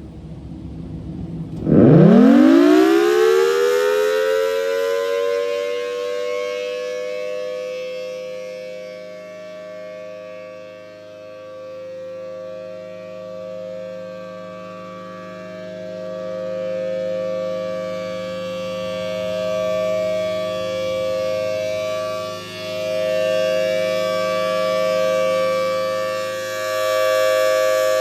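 Federal Signal Thunderbolt 1000T outdoor warning siren starting up. After a brief low rumble, its tone sweeps quickly up about two seconds in and then holds steady, two tones sounding together. The sound swells and fades every few seconds as the siren head rotates.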